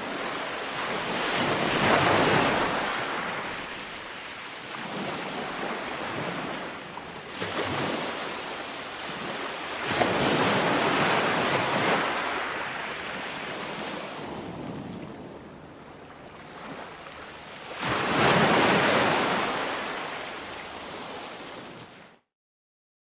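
Ocean waves breaking on a shore: three swells surge up and fall back, about eight seconds apart. The sound cuts off abruptly into silence about a second before the end.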